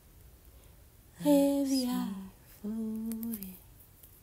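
Song vocal, wordless: after about a second of quiet, two short sung phrases. The first slides down in pitch; the second is held on one note and drops at its end.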